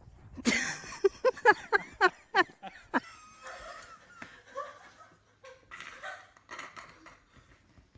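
A person laughing hard: a quick run of about seven loud "ha"s that fall in pitch, then softer chuckling.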